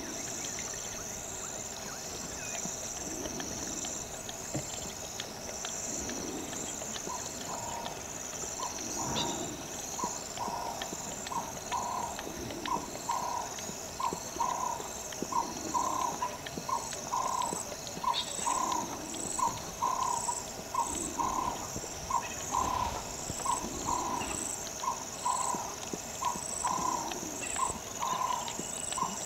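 A leopard lapping water, starting about seven seconds in and going on at an even rhythm of roughly two laps a second, growing louder. Steady high insect chirring runs underneath.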